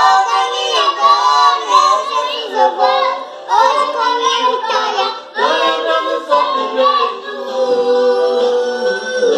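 Children's voices singing a Portuguese-language gospel song, ending on a long held note.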